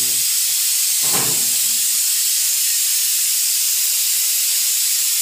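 A steady, loud hiss, with a brief low sound about a second in.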